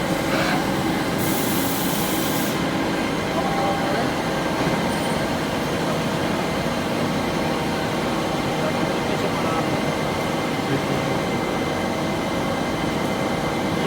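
JohnFord TC-75 CNC lathe running through its machining cycle: a steady machine hum with several fixed tones. About a second in there is a brief hiss lasting a second or so.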